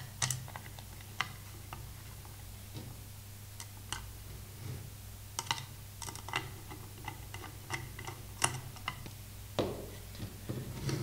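Irregular small clicks and ticks of metal bolts, nuts and a screwdriver knocking against acrylic plates as a scale is screwed together by hand, over a steady low hum.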